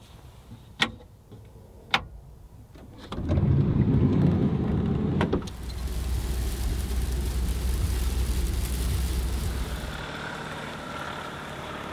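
A few sharp clicks, then a van driving on a wet motorway in heavy rain, heard from inside the cab: a steady low road rumble under the hiss of rain and tyre spray, easing off near the end.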